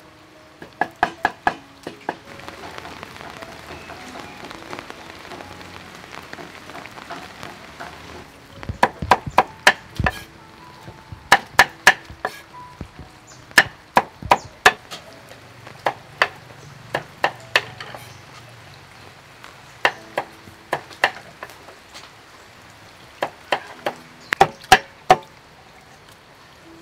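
A cleaver chopping winged beans on a thick wooden chopping board: bursts of quick, sharp knocks, a few strokes at a time, with pauses between the bursts.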